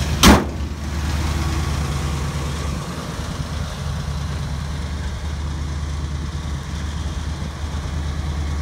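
1955 Chevrolet pickup's engine idling steadily, which the owner says now runs nice after the carburetor work. About a quarter second in, one loud slam as the truck's hood is shut.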